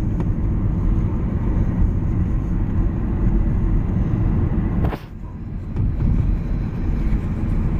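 Van road noise heard from inside the cabin: a steady low rumble of tyres and engine while driving. About five seconds in there is a single sharp knock, and the rumble dips briefly before building back up.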